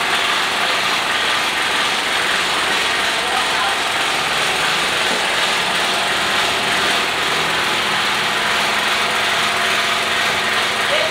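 A steady mechanical whirring noise with no breaks or distinct strokes.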